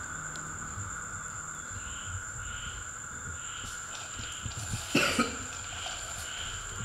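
A person coughs, a short double cough about five seconds in. Behind it run steady insect trilling and a regular chirp a little under twice a second.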